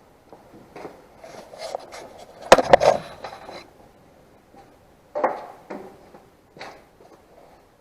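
Clunks, knocks and scraping of hands handling tools and machine parts. A quick cluster of sharp knocks comes about two and a half seconds in, with a few more single knocks later.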